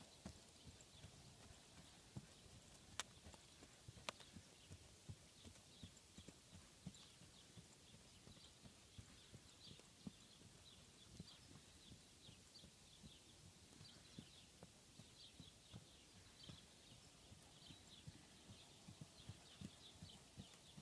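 Faint, regular hoofbeats of a ridden horse moving over firm, uneven grass ground, its hooves unshod, so they fall as soft thuds without the ring of metal shoes.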